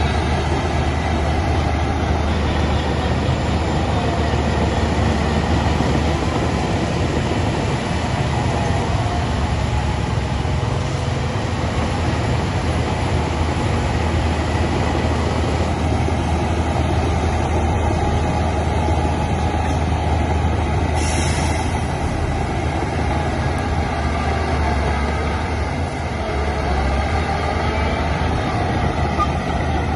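Heavy diesel earthmoving machinery running steadily: a deep, continuous engine drone with a broad rumble over it. A brief high hiss about two-thirds of the way through.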